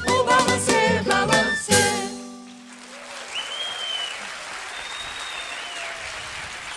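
A woman singing with a small acoustic band (flute, violin, seven-string guitar, mandolin, drums) ends the song on a held final chord about two seconds in. The audience then applauds steadily, with a few high calls over the clapping.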